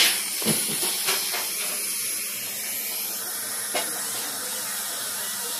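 Dental suction hissing steadily while it draws from the patient's mouth, with a faint high whine above it and a few light clicks.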